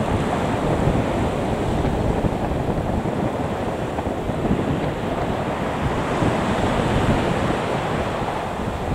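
Steady low rushing noise of wind buffeting the microphone, mixed with the taxiing Boeing 737-800's jet engines at idle.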